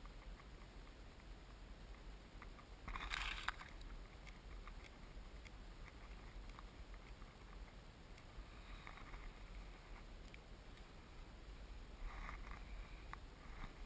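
Faint crinkling of a paper sky lantern's envelope being handled and opened out, in three brief bursts, the loudest near the start and ending in a sharp click, over a low steady rumble.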